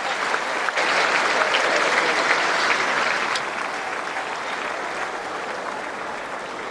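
Centre-court tennis crowd applauding, steady at first, then gradually fading from about halfway through.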